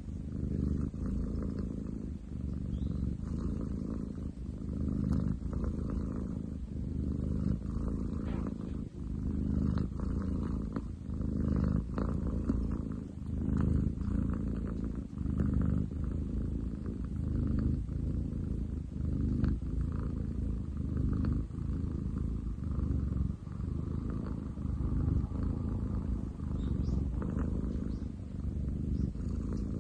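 Domestic cat purring loudly and continuously, a deep rumbling purr that swells and eases with its breathing every few seconds.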